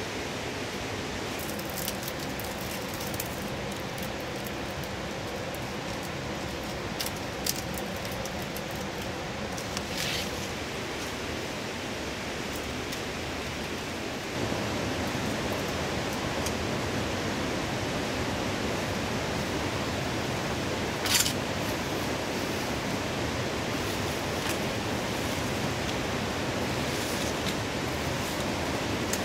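Woven palm-leaf panels rustling a few times as they are handled and fitted against bamboo poles, over a steady rushing background hiss that gets a little louder about halfway through.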